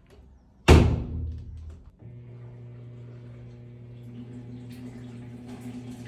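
The glass lid of a Brastemp top-loading washing machine is shut with one loud thunk, which rings briefly. About two seconds in, the machine starts up with a steady low hum.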